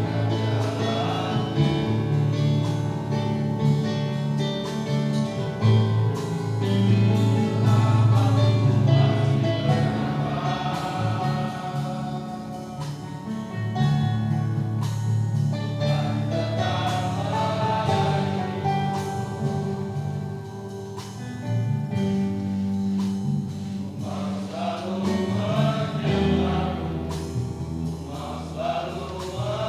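Men's church choir singing a gospel song in Indonesian, several voices holding long notes together.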